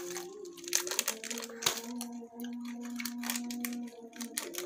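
Plastic snack sachets crinkling and crackling in the hands, with many short sharp clicks, as they are squeezed and bitten open. A faint steady hum-like tone sounds underneath for about two seconds in the middle.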